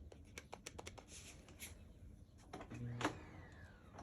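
Light plastic clicks and handling of a Sebo D4 vacuum cleaner. Near the end its motor hums briefly and stops with a click, and a faint whine falls as the motor slows.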